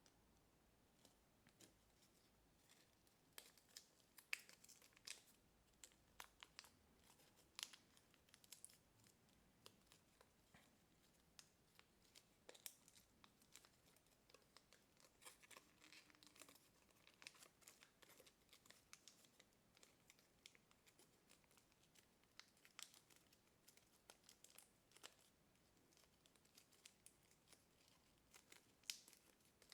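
Quiet crinkling with scattered crisp snaps as a sheet of thin kami origami paper is folded and creased by hand.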